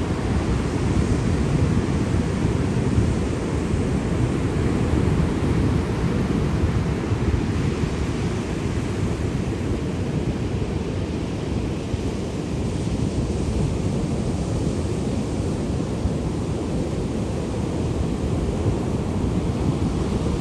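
Sea surf: a steady low rush of waves washing in, easing slightly about halfway through.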